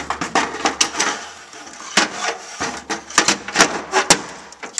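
Lower module cover of an SGI Onyx2 rack being hooked onto the rack front: a quick run of clicks, knocks and scrapes as its hooks catch and it drops into place.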